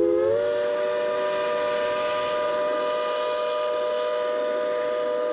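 Narrow-gauge steam locomotive's chime whistle blown in one long blast: a chord of several notes that rises slightly in pitch as it comes on, holds steady for about five seconds, then cuts off with a slight drop in pitch.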